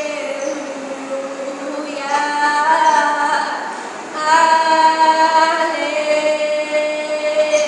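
A woman singing long held notes, her voice swelling louder about two seconds in and again about four seconds in.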